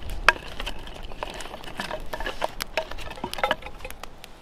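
Small, newly lit campfire of twigs and split kindling crackling, with many irregular sharp snaps and pops as the wood catches.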